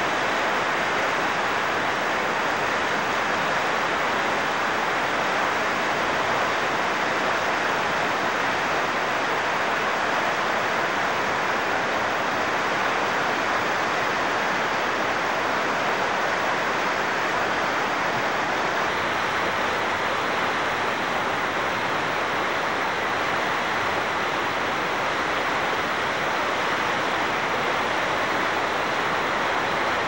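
Fast river water rushing steadily over rapids, a constant even wash of noise.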